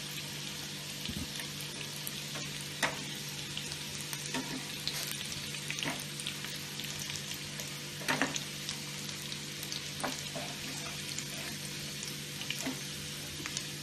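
Small whole potatoes shallow-frying in hot oil in a pan, a steady sizzle, with a handful of sharp clicks as a metal slotted spoon knocks against the pan. The potatoes are fried golden brown and being lifted out.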